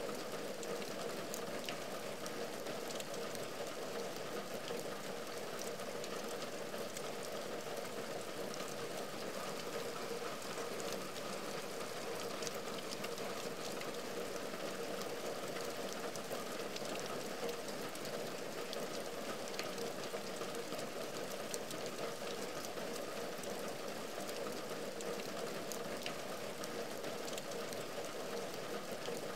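Heavy rain falling steadily on a window and its wooden sill: an even wash of rain with many small drop ticks.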